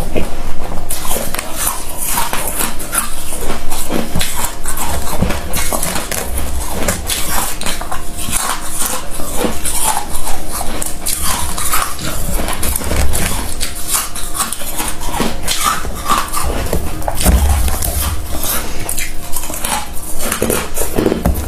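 Freezer frost being scraped off a frosted wire rack with the fingers and crunched between the teeth: a dense, unbroken stream of crisp crackles and scrapes.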